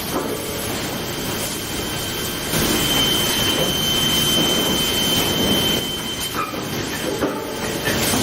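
Sawmill machinery running, with a steady high whine for a few seconds in the middle.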